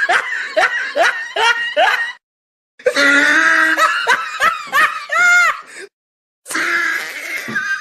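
Laughter in quick repeated bursts, broken twice by a brief total dropout.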